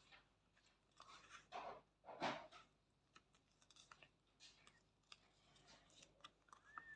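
Faint crinkling and tearing of a foil trading-card pack being opened, with a few light clicks of cards being handled.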